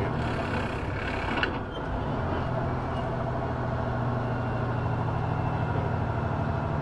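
Semi truck's engine running with road noise, heard from inside the cab as the truck slows down. A brief click comes about a second and a half in.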